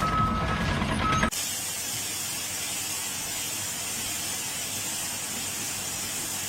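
A steady, even hiss, strongest in the high pitches. It follows a loud, noisy first second carrying a steady high tone, which cuts off suddenly.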